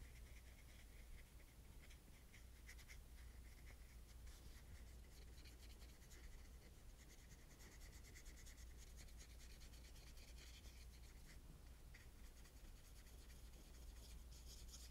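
Very faint scratching of a small paintbrush stroking and dabbing paint onto paper, in short irregular strokes, over a steady low hum.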